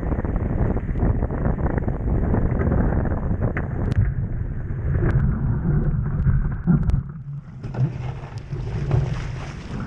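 Wind buffeting the microphone aboard a sailing dinghy under way, with the rush of water along the hull and a few small knocks. The wind noise drops briefly about seven seconds in, leaving a brighter hissing before it picks up again.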